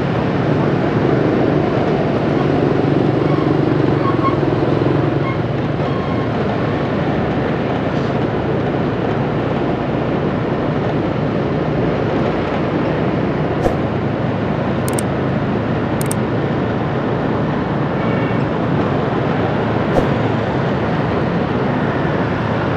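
Steady engine and road noise from riding a motorbike through city traffic, with a few brief sharp clicks in the second half.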